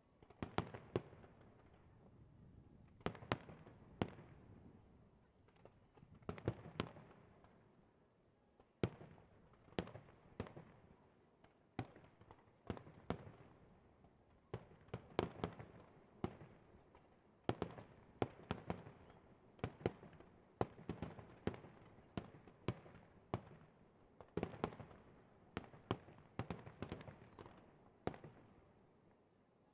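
Aerial fireworks bursting in an uneven run of sharp bangs, one to three a second, some in quick clusters, each followed by a short rumbling echo.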